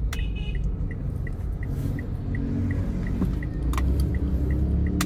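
Inside a Mitsubishi Mirage's cabin at low speed, with a steady low engine and road rumble. Over it the turn-signal indicator ticks evenly, about three times a second. A couple of sharp clicks come near the end.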